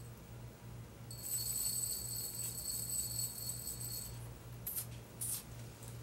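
A small bell ringing for about three seconds with a high, shimmering tone, followed by two short rattling shakes near the end, used as a test sound for an infant's hearing.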